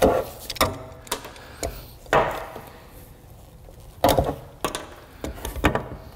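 Irregular sharp clacks and knocks of a hand tool prying rubber spark plug grommets out of a valve cover, with the freed grommets set down on a steel workbench.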